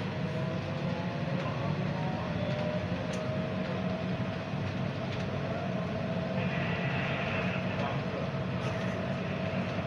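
Bukit Panjang LRT C801B car (Bombardier Innovia APM 300R, rubber-tyred) running along its guideway, heard from inside the car: a steady low rumble with a motor whine that rises a little in pitch over the first few seconds. A higher tone joins briefly about two-thirds of the way through.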